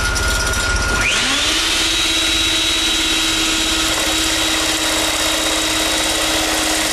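A wood router switches on about a second in, its motor spinning up to full speed within about half a second and then running with a steady high whine. Under it runs the low, rhythmic rumble of the homemade lathe already turning.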